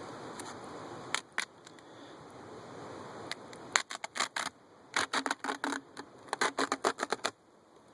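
Handling noise of a beehive being taken apart: short clicks and scrapes, two near the start and then quick clusters of them from about four seconds in, stopping just past seven seconds.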